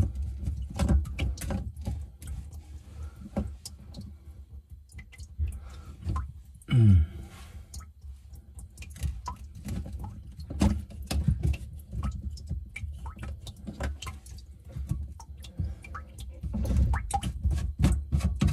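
Hands working a plastic slip-joint nut on a PVC sink drain pipe: scattered small clicks, taps and scrapes of plastic. About seven seconds in comes one louder sound that falls steeply in pitch.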